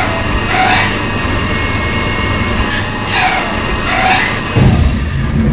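Tormach CNC lathe peck-drilling a 9 mm hole deep into the spinning bar with a gang-tooled drill, flooded with coolant. The machine runs steadily under a spraying hiss and a whine, with a sweeping sound that comes back every second or two as the drill pecks. It grows louder, with a low rumble, near the end.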